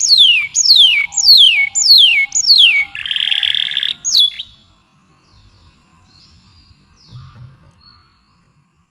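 A songbird singing a run of five loud whistles, each sliding steeply down in pitch, about one a second. A harsh buzzing trill of about a second follows, then one last whistle, and the song stops about four and a half seconds in.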